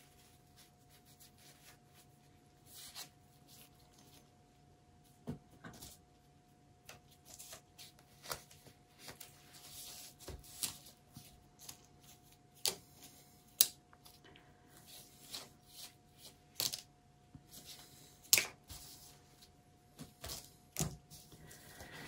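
Light handling noises: scattered sharp clicks and short rustles as plastic spoons and pouring tools are moved and set down on a plastic drop sheet, with a faint steady hum underneath.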